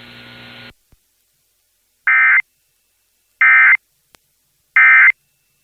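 Emergency Alert System end-of-message signal: three short, loud, raspy digital data bursts about a second and a half apart, marking the close of a weather radio warning. A faint broadcast hum cuts off under a second in, before the bursts.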